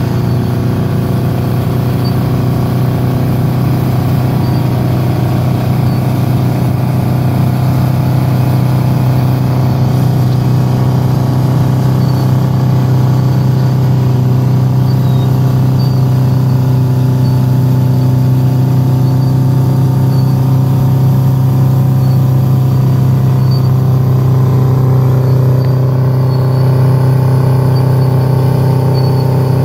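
Heavy diesel engines of a Terex TS-14 scraper and the Caterpillar D6H dozer pushing it, running hard and steady under load as the scraper cuts and fills its bowl with dirt. The engine note stays low and unchanging throughout.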